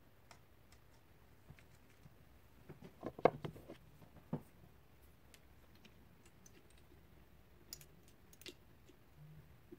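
Light clicks and knocks of small plastic paint cups being handled and set down on a table, a cluster of them about three to four seconds in, with a few faint ticks near the end.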